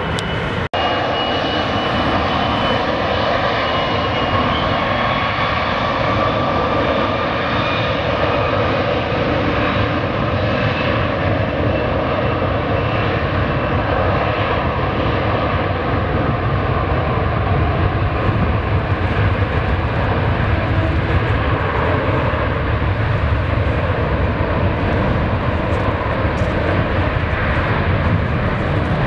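Distant jet engines of an Airbus A330 on the runway: a steady, continuous rumble with a faint whine that rises slowly in pitch. There is a brief dropout about half a second in.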